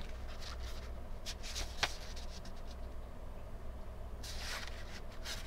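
Pages of a paperback manga volume being turned and handled: a run of short paper rustles with a sharp tap near two seconds in, then a longer page-turn swish about four seconds in and another near the end, over a low steady hum.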